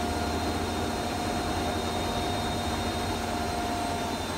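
Steady machine whir with a constant hum and a thin, high steady tone, holding at an even level throughout.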